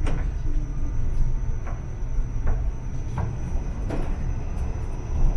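Steady low rumble of a moving train heard from inside the carriage, with light clicks or knocks about once a second.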